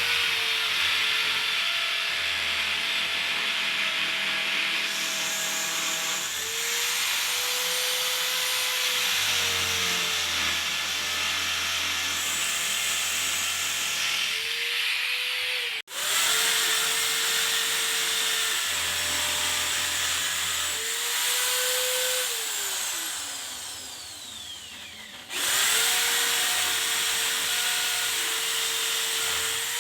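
Electric power drill running in long runs, its motor pitch rising as it speeds up and sagging as it slows several times. The drill breaks off abruptly about halfway, later winds down slowly, and starts again near the end. It is drilling for the curtain-rod brackets.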